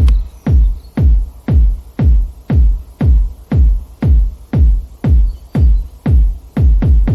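Background electronic dance music with a steady four-on-the-floor kick drum, about two beats a second.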